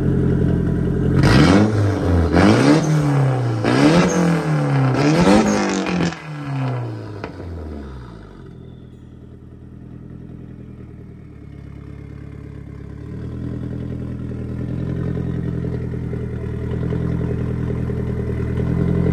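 Nissan 240SX's SR engine running through a straight-piped ISR dual-tip blast pipe. It idles, then is revved four times in quick succession, about a second and a half apart, and settles back to a quieter steady idle that grows slightly louder near the end.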